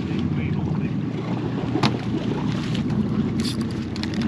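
Steady wind rumble on the microphone, with a few short clicks about two seconds in and again around three and a half seconds.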